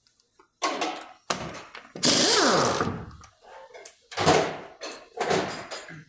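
Impact wrench spinning the lug nuts off a front wheel in several short bursts, the longest about two seconds in.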